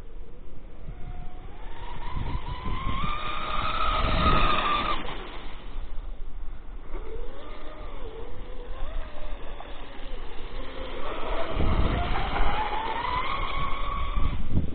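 Electric RC catamaran's SSS 3674 brushless motor and propeller whining under throttle. The pitch rises over a few seconds and cuts off about five seconds in, then wavers lower. Near the end the pitch climbs again in a second run.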